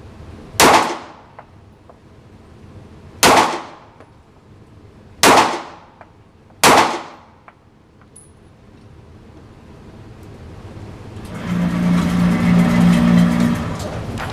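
Four single gunshots fired slowly, a second and a half to nearly three seconds apart. In the last few seconds a rushing noise swells up with a low steady hum in it.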